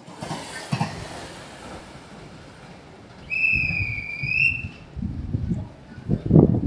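A single long, steady high-pitched whistle blast lasting just over a second, starting about three seconds in. Low rumbling builds near the end.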